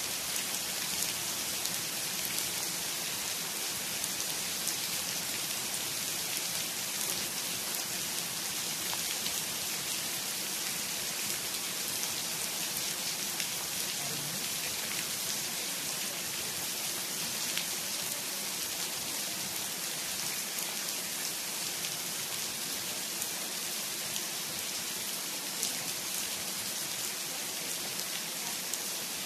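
Steady rain falling on a grassy lawn, bare soil and a concrete path: an even hiss with scattered drop ticks.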